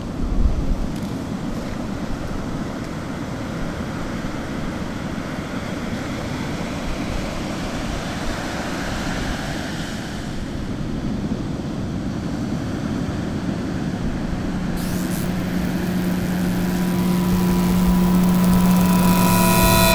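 Steady low rumble of surf and wind on a beach, with a low thump about half a second in. From about fifteen seconds in, a hiss like television static swells and steady electronic hum tones rise under it, growing louder until the sound cuts off abruptly.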